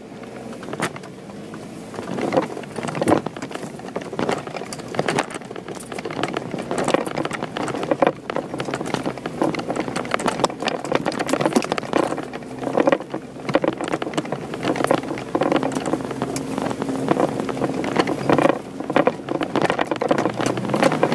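Jeep Wrangler driving over a rough, rocky trail: the engine runs steadily, with many knocks and rattles from the body and tyres jolting over rocks and branches.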